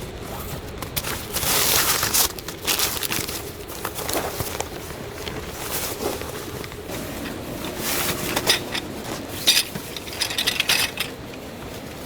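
Irregular bursts of clattering and crunching from objects being handled, with sharp clinks near the end.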